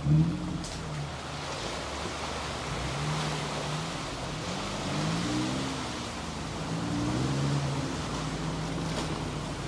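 Toyota off-road SUV engines revving at low speed, the engine note climbing in pitch a few times: about three, five and seven seconds in. Under it runs a steady rushing hiss.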